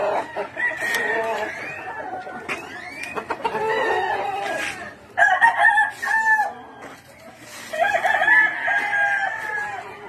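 Several gamefowl roosters crowing, the crows overlapping one another, with short rising calls between. Loud single crows come about five seconds in and again about eight seconds in.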